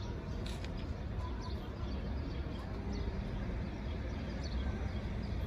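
Outdoor street ambience: a steady low rumble with faint bird chirps now and then.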